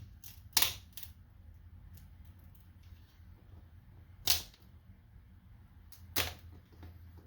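Sharp clicks and snaps as a pry tool is slid along a laptop screen's edge to break its adhesive: a few clicks in the first second, then two louder snaps about four and six seconds in.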